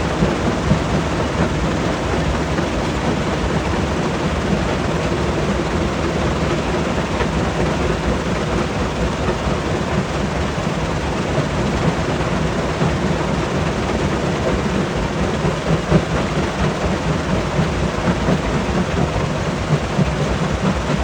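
Rock crusher running, crushing stone: a steady heavy rumble with a dense rattle of rock, and small irregular knocks now and then.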